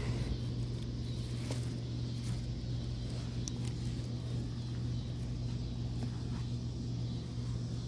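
A steady low hum that holds one pitch throughout, like a motor or engine running, with a few faint clicks over it.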